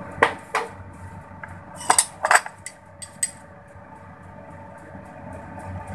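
A metal spoon clinking on ceramic crockery while ketchup is scooped and spread: four sharp clinks in the first two and a half seconds, a few lighter taps after, then only a faint steady hum.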